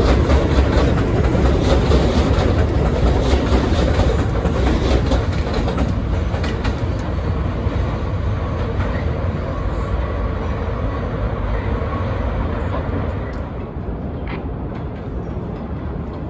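New York City subway train of R62A cars running on an elevated steel line: a steady heavy rumble of wheels on rails, loudest in the first several seconds and growing quieter in the second half.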